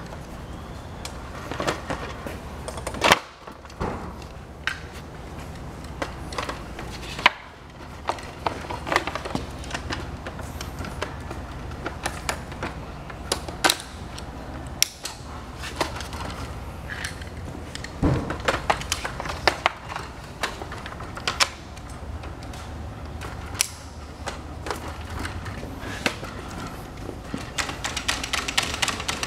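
Irregular clicks, knocks and clatter of a HIMOUNT SDI040-2 folding workbench being handled: the wooden top boards slide and bump on the blue steel frame, and the plastic clamps are fitted and adjusted. Two sharp knocks stand out, about 3 and 7 seconds in, and the clattering grows quicker near the end.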